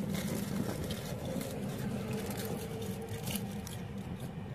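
Steady low hum inside a car, with faint small clicks and rustles as food is handled.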